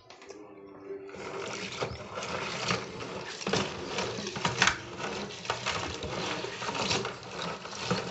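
Crab shells clattering and scraping against each other and a plastic basin as they are scrubbed by hand in water: rapid, irregular clicks and rattles.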